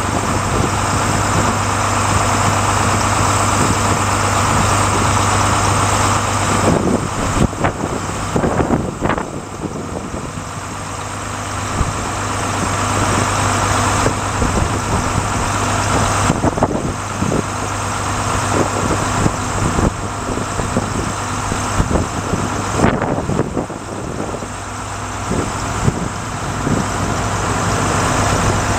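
Volvo truck engine running steadily to drive the Hiab 435K crane's hydraulics while the boom is raised and extended. The sound shifts and dips a few times as the crane is worked, with scattered short knocks.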